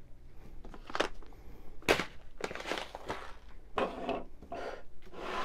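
A run of rustling, crinkling and sharp knocks as packages and a glass are handled and moved about on a wooden tabletop. The loudest knock is about two seconds in.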